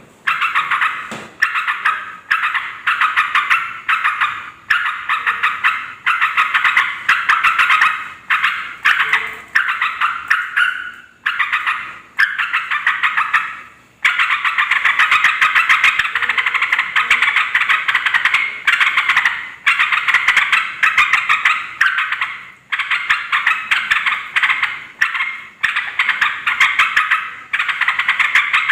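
Yellow-vented bulbuls chattering noisily: quick runs of sharp calls in bouts of one to two seconds, following one another almost without a break.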